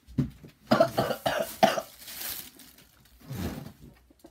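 A person coughing and sputtering after taking a spoonful of dry ground cinnamon: a quick run of harsh coughs, a long hissing breath out, then one more cough near the end.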